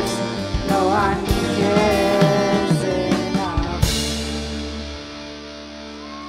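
Live rock band playing the close of a song: a wavering melody line over drums and guitar, then a final crash about four seconds in, with the last chord left ringing and fading.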